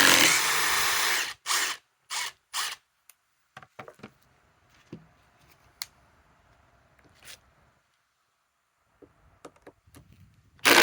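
Cordless impact driver running at full speed and cutting off about a second in, followed by three short trigger bursts and a few light handling clicks.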